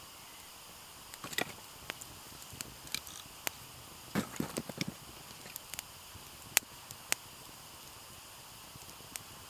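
Wood campfire crackling: irregular sharp pops and snaps, one much louder pop about six and a half seconds in, with a cluster of duller knocks around four seconds in.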